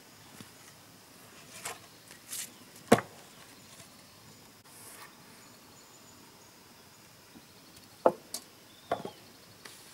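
Sharp, separate knocks of a hand tool striking wood. One group comes between about one and three seconds in, with the loudest strike at the end of it, and a second group comes near the end.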